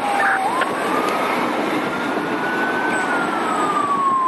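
Fire truck siren on a slow wail: the tone rises steadily for about three seconds, then slides back down, over the hiss of road traffic.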